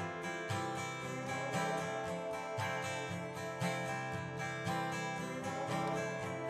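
Background music: a strummed acoustic guitar with a steady rhythm.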